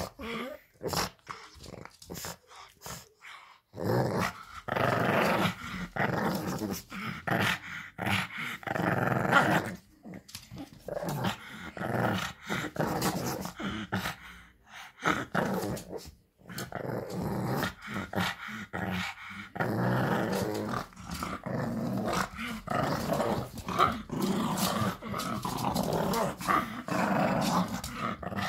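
Pug puppy growling while tugging at a rope toy, in long rough stretches broken by short pauses.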